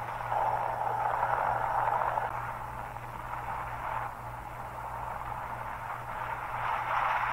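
Steady rushing noise with a low hum underneath: wind and helicopter noise on a camera filming from a hovering rescue helicopter. It is louder for the first couple of seconds and again near the end.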